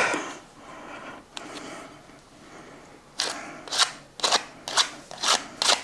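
A spoon scraping sour cream out of its container, soft handling noise at first, then from about three seconds in a steady run of scrapes, about two a second.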